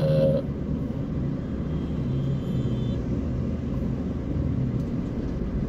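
Steady engine hum and road rumble heard from inside a Toyota car's cabin as it is driven slowly.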